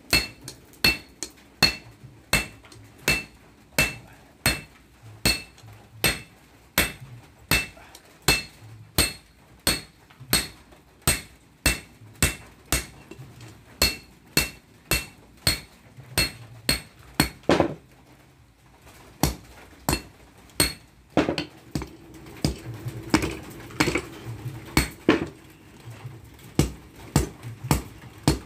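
Hand hammer forging red-hot breaker-chisel steel on a steel anvil: steady blows at about one and a half a second, each a sharp metallic clang with a ringing tone. The hammering breaks off briefly a little past halfway and then resumes, with a steady low hum underneath it.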